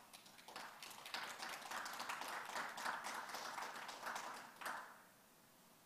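A small audience applauding: thin, scattered clapping that starts about half a second in, holds for about four seconds and stops near the end.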